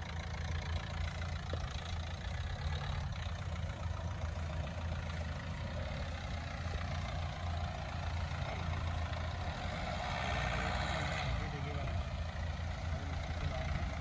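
Ford sedan's engine running at low revs as the car creeps slowly over uneven ground, a steady low hum, with a louder stretch about ten seconds in.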